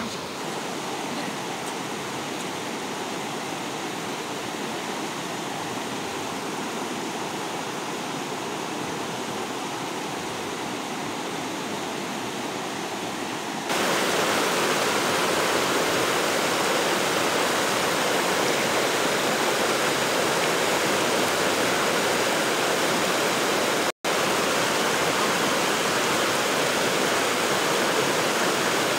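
Steady rush of a fast-flowing stream. It gets louder about halfway through and drops out for an instant near the end.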